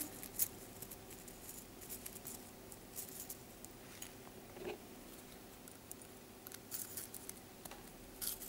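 Faint, scattered clicks and clinks of small metal chainmail jump rings being handled and closed with pliers, over a faint steady hum.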